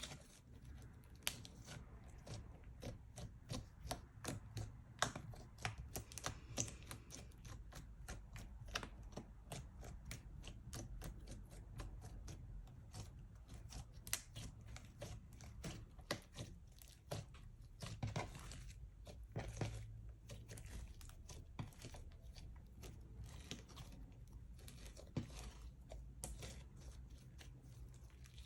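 Slime being kneaded and stretched, giving dense, irregular sticky clicks and crackling pops.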